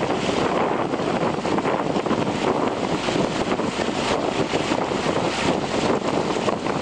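Steady rushing wind noise on the microphone over the low running of a motor, as from a launch keeping pace alongside a rowing shell.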